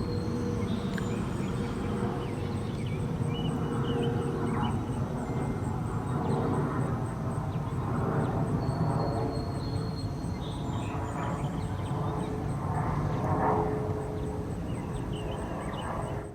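Distant Whelen outdoor warning sirens sounding a steady tone that swells and fades as they rotate, over a low rumble of traffic. Short bird chirps and a faint high, pulsing insect buzz sit above it.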